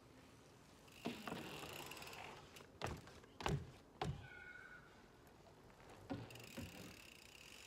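Mountain bike riding on a low wooden deck: about six dull knocks, irregularly spaced, as the tyres and frame bump on the deck boards, with faint rolling noise between.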